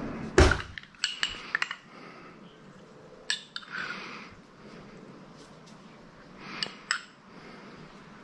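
Metal spoon clinking and scraping against a small glass jar while scooping chili oil: a loud clink about half a second in, a quick run of lighter clinks just after, then a few single clinks spaced several seconds apart.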